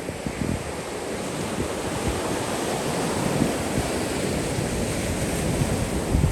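Sea waves washing onto the beach, their noise building slowly, with wind rumbling on the microphone.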